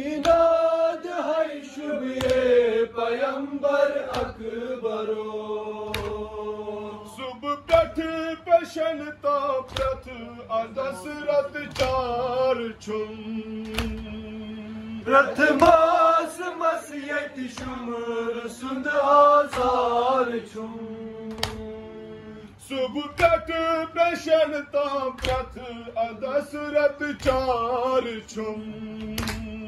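A group of men chanting a Kashmiri noha, a Shia lament, with held notes and a sung melody. Sharp hand slaps on the chest in matam keep a beat about once a second.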